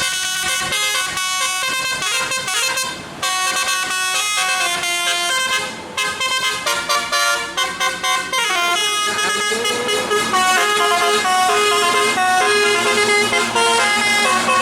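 Bus telolet horn, a multi-tone musical air horn, playing a quick tune of stepped notes. The tune breaks off briefly about three seconds in and again near six seconds, and one note slides upward a little past the middle.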